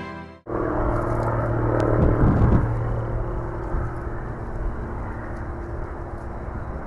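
Bombardier Q400's twin Pratt & Whitney PW150A turboprops at takeoff power on the takeoff roll: a steady propeller drone with a low hum over a rumble. It swells about two seconds in, then settles.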